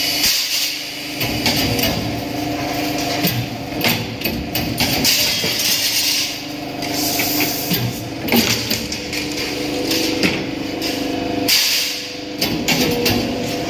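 Metal fabrication work: irregular hammer blows and clanks on steel parts over the steady hum of a running machine.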